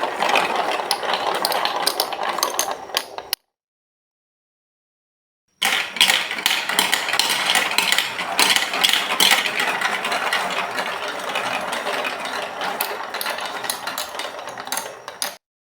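Marbles rolling and clattering along a plastic Lego Duplo marble-run track: a dense stream of clicks over a rolling rumble. It cuts off suddenly about three seconds in, is silent for about two seconds, then starts again and cuts off suddenly near the end.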